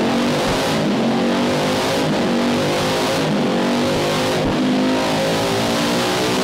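Tuned Honda CB500 engine on a rolling-road dyno, running hard under throttle during a power run. Its pitch climbs in repeated rising sweeps, each broken by a short dip about once a second.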